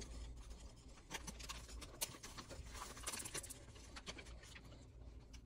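Dry, crumbly smoothie mix (a BlendJet JetPack, peanut butter power breakfast) being poured from its cup into a BlendJet 2 blender jar. Faint rustling and pattering of granules with scattered small clicks, heaviest about three seconds in, some of it spilling onto the desk.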